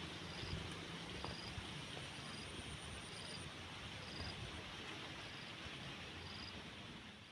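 Insects chirping: a short high chirp repeating about once a second over a fine, continuous high trill, against a steady hiss and low rumble.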